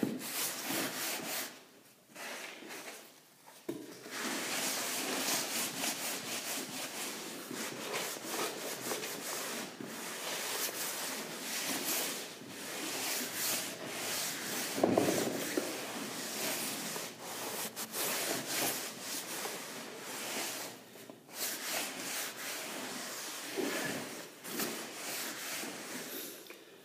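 Terry-cloth towel rubbed back and forth over a wet hardwood floor in repeated strokes, with a few short pauses. This is the excess rinse water being wiped up after the paint has been stripped.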